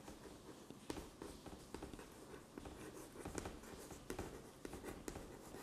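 Chalk writing on a chalkboard: faint, irregular taps and scratches as a line of words is written.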